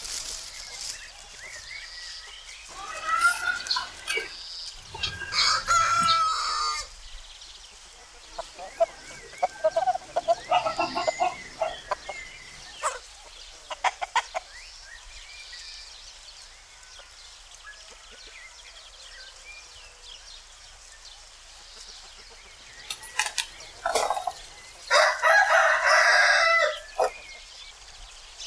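Roosters crowing several times, the longest and loudest crow near the end, with chickens clucking in short calls in between.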